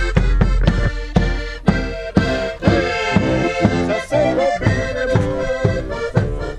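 Accordion playing a lively folk tune over a bass drum beating about twice a second: carnival band music.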